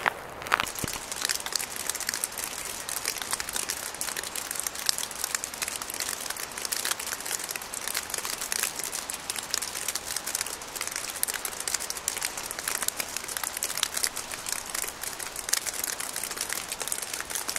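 Graupel (small pellets of packed snow) falling on dry fallen leaves: a dense, steady patter of fine ticks.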